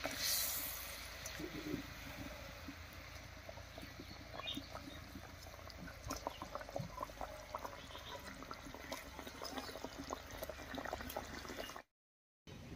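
Mustard gravy boiling in a wok, faint bubbling and crackling as fried pabda fish are laid into it, with a short splashing sizzle at the start. The sound cuts off shortly before the end.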